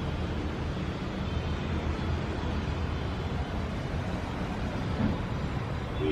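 Steady low rumble of city traffic, with a brief faint tone near the end.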